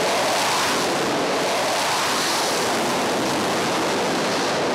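Jet engines of a Rafale fighter running at high power on a carrier flight deck: a steady, even rushing noise that holds at one level.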